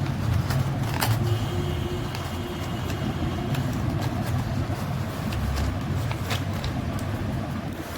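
Packaging of a reward parcel being handled and opened: a few sharp clicks and crinkles over a steady low rumble like road traffic.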